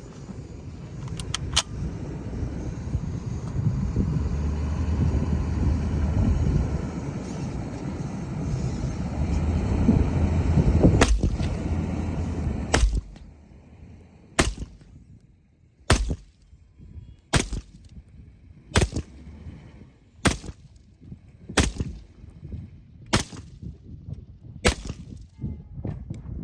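A steady loud rumbling noise for about the first twelve seconds, then an SKS semi-automatic rifle firing 7.62×39mm rounds. It fires about ten evenly paced shots, roughly one every second and a half.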